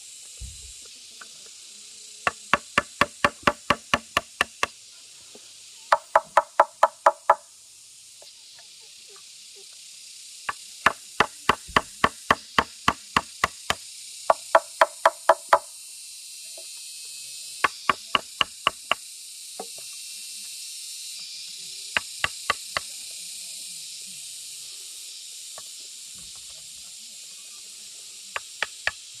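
Bursts of sharp, rapid strikes on bamboo, about four to five a second, in runs of several blows with pauses between. Some runs ring with a hollow tone.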